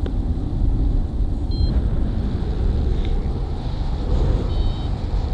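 Strong wind rushing over the microphone as a steady low buffeting, with two short high electronic beeps, one about a second and a half in and a slightly longer one near the end.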